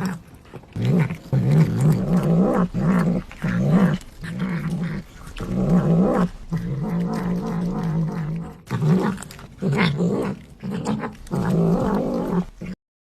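A cat growling: a long series of low, drawn-out growls broken by short pauses, which cuts off abruptly near the end.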